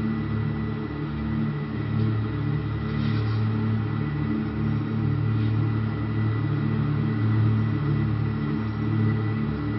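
A steady low hum with a thin, high steady whine above it.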